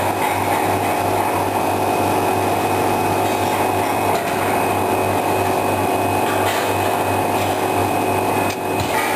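Horizontal H-beam welding machine running: a steady low hum with a continuous noisy hiss over it.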